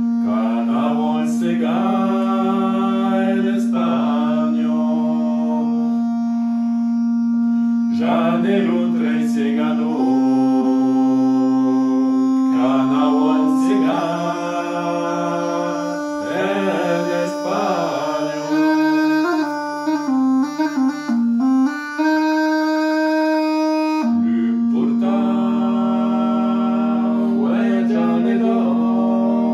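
Bagpipe playing a tune: a loud held low note that steps up in pitch a few times and comes back down near the end, with a melody over it and a run of short separated notes about two-thirds of the way through. A man's voice sings along in short wavering phrases.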